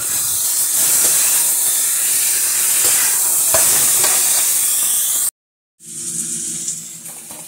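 Potatoes, sausage and cherry tomatoes sizzling hard in a hot wok, a steady loud frying hiss with a few scrapes of a metal spatula. About five seconds in the sound cuts off abruptly; after a brief silence a quieter hiss with a low steady hum follows.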